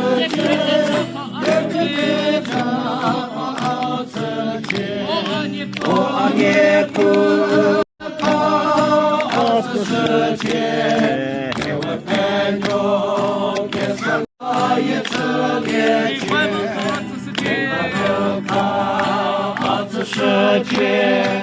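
A group of voices singing together in chorus. The sound cuts out completely for a moment twice, about 8 and 14 seconds in.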